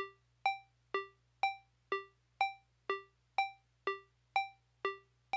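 Song intro on a synthesizer keyboard: short, quickly fading notes about two a second, alternating between a low note and one roughly an octave higher. The sparse figure plays alone, with no voice or drums yet.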